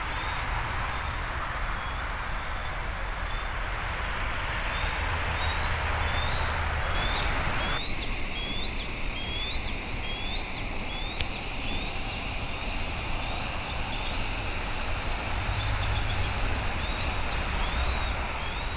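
Bald eagle giving a long series of short, high calls, about two a second, over a steady background rumble and hiss. The hiss drops abruptly about eight seconds in.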